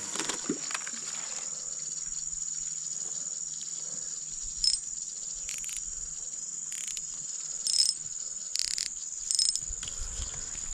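Steady high-pitched drone of insects, with half a dozen short rustling noises in the second half.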